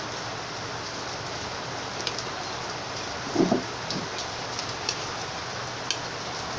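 A metal spoon clicking faintly against a plate a few times over a steady hiss, with one brief low sound about three and a half seconds in.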